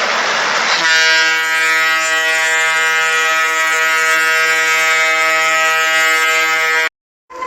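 Simulated Emergency Alert System alarm: a short burst of hiss, then a steady, buzzy horn-like alarm tone held for about six seconds that cuts off suddenly.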